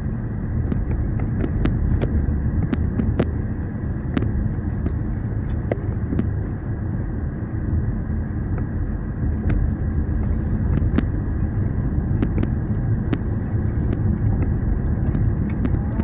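Steady road and engine noise heard inside a moving car's cabin, with many short, light clicks scattered through it.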